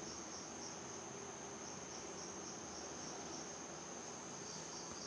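Crickets trilling faintly and steadily, a high continuous chirring over low room hiss.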